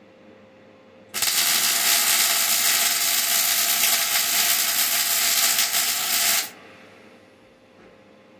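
Welding arc burning steadily for about five seconds on a car's rear bumper, as a loud even hiss that starts sharply about a second in and cuts off suddenly.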